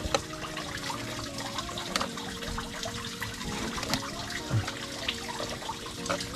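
A knife scraping and cutting a fish on a cutting board, with short sharp clicks of the blade, over faint background music.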